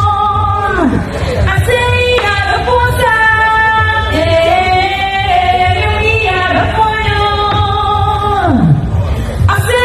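A woman singing long held notes over backing music with a steady low bass, her voice sliding down at the end of a phrase about a second in and again near the end.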